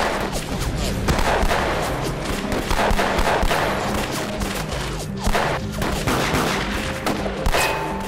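Gunfire from several pistols, many shots going off in quick succession and overlapping, over a background music score.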